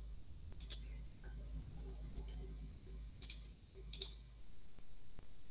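Sharp clicks at a computer while screen sharing is set up: a loud click about a second in, two more near three and four seconds in, then a few fainter ticks near the end, over a low hum.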